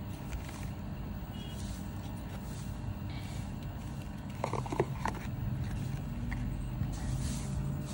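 Paper cards and a printed booklet being handled and leafed through, with faint rustles and a quick cluster of small clicks about halfway through, over a steady low background rumble.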